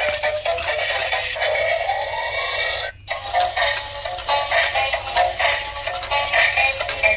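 Dancing robot toy's small built-in speaker playing an electronic tune with synthetic-sounding vocals, with no bass. About two seconds in a rising sweep leads into a brief break, then the tune resumes.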